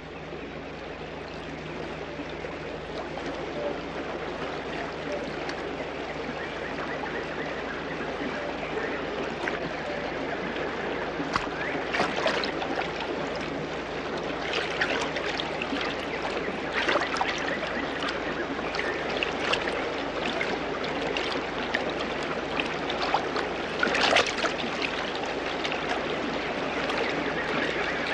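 Shallow river rushing over rocks, growing a little louder over the first few seconds. From about ten seconds in come occasional short splashes as people wade through the current.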